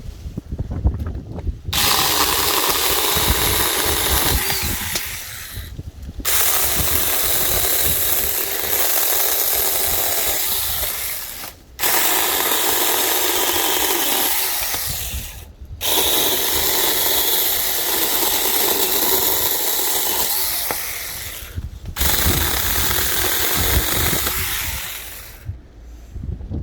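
Battery-powered 21 V mini pruning chainsaw running under the trigger in five bursts of several seconds each, with brief pauses between them, as it cuts.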